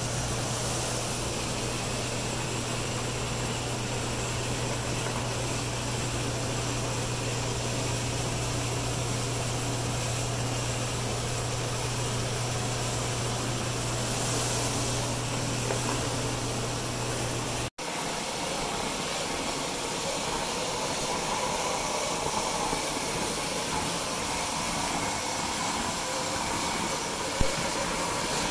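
Hydro-Force hard-surface spinner tool cleaning tile: a steady hiss of water spray and vacuum suction through the hose, over a low steady hum. About two-thirds of the way through the sound drops out for an instant and resumes without the low hum, and a single sharp click comes near the end.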